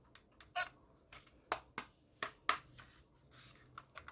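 Irregular sharp clicks and taps from a toy gun being handled, a dozen or so over a few seconds, the loudest clustered in the middle.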